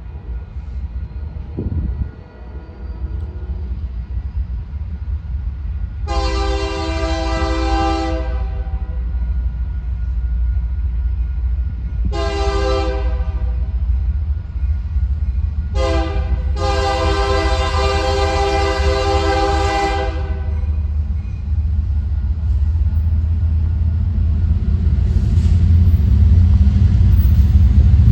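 Approaching train's locomotive air horn sounding the grade-crossing signal: two long blasts, a short one, then a longer final blast. Under it the deep rumble of the train grows steadily louder as it nears.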